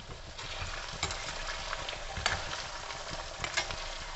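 Stink bean seeds and chopped garlic frying gently in a stainless steel kadai over medium-low heat, a steady sizzle as their moisture cooks off. A few sharp clicks come through, and a metal slotted spoon stirs the seeds near the end.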